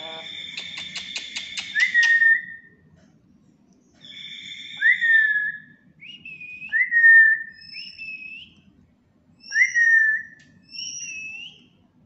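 Black-capped lory whistling: a rapid buzzy trill at first, then a run of about seven short, loud whistled notes, each jumping up sharply in pitch, alternating between a lower and a higher note.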